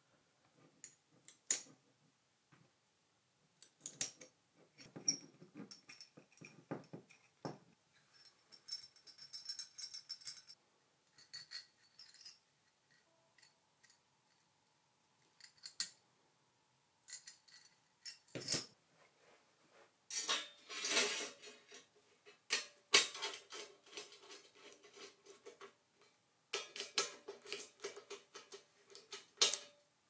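Small metal parts being handled and fitted: screws and Allen keys clicking and clinking against a metal camera mounting plate, with scraping as screws are turned. Longer rattling stretches come about twenty seconds in and near the end.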